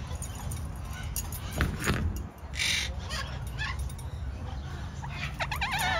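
Bird calls from an aviary: a short rasping call about halfway through, then a wavering call that falls in pitch near the end, with a couple of faint knocks before them.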